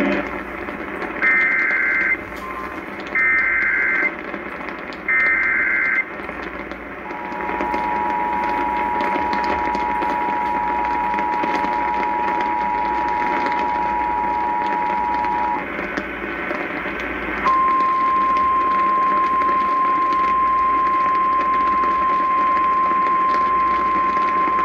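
Emergency Alert System broadcast received over radio: three one-second bursts of SAME digital header data, then the two-tone EAS attention signal held steady for about eight seconds. Then, about seventeen seconds in, a single steady 1050 Hz weather-radio alert tone begins, all over a constant radio hiss.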